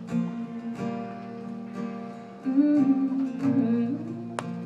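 Acoustic guitar strumming the closing bars of a slow country ballad, with a wordless hummed vocal line bending in pitch through the middle, and a brief sharp click near the end.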